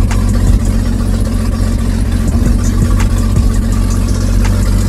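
Jeep Grand Cherokee's 4.0 straight-six engine running steadily, with a few sharp clicks over it.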